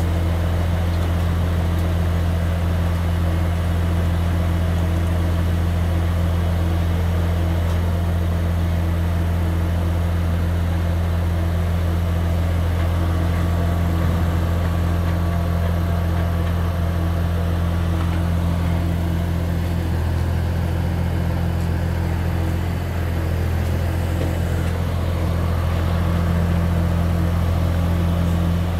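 Beiben 8x8 truck's diesel engine running steadily at the kerb, powering the truck-mounted crane while it lowers a load. A little after twenty seconds in the engine note shifts and dips briefly, then settles back.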